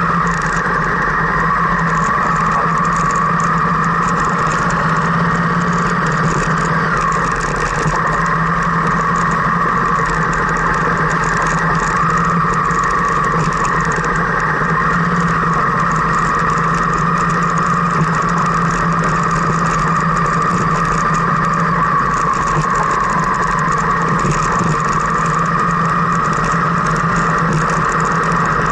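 Car heard from inside the cabin while driving along a gravel and dirt track: steady engine and road noise, with tyres ticking and crunching over loose stones.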